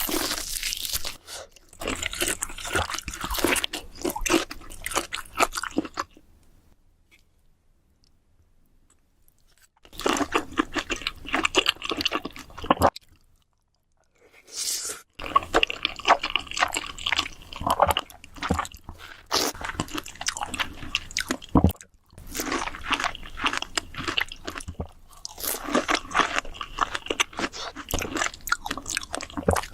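Close-miked crunching and chewing of crisp food, with bites, in several spells, broken by a pause of a few seconds about a fifth of the way in and a shorter one near the middle.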